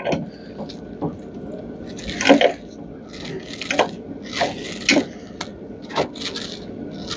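Hand work taking apart a metal range hood: a run of irregular clinks and knocks as parts and fasteners are handled, the loudest about two seconds in.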